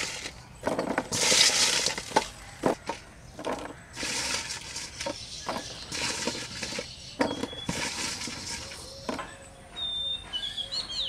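Pieces of raw mango coated in salt and turmeric being moved by hand from a steel bowl onto a woven bamboo tray: a run of irregular soft taps and clinks as they drop onto the bamboo and knock against the bowl. A bird chirps a few times near the end.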